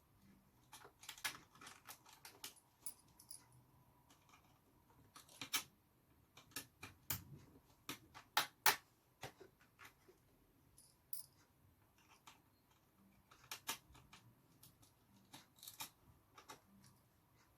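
Scattered light clicks and short scrapes of a small tool working a stuck captive screw out of an HP Folio 9470m laptop's plastic hard-drive cover, prying the screw up so it comes free.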